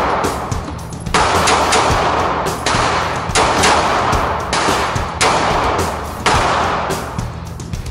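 A 9mm semi-automatic pistol fired shot after shot, about one a second, each report ringing out in the enclosed range.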